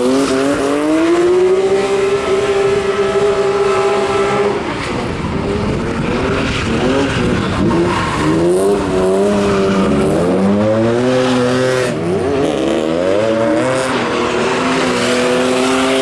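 BMW E36 drift car's engine revving hard, held high for several seconds, then repeatedly rising and falling as the throttle is worked through the slides, with tyres squealing.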